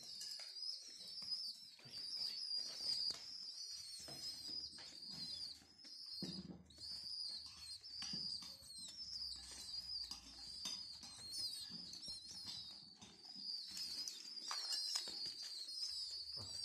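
Homing pigeon squabs begging with continuous high-pitched, wavering peeps while being hand-fed, with wing flutters and scuffling on the mat.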